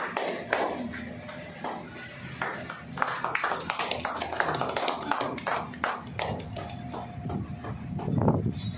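Irregular sharp taps or claps, several a second, with faint voices murmuring near the end.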